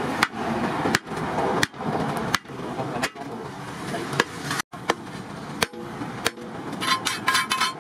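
Steel bar driven down again and again onto the centre of a steel plough disc, a sharp metallic knock about every 0.7 seconds. Near the end comes a quick rattle of smaller clicks.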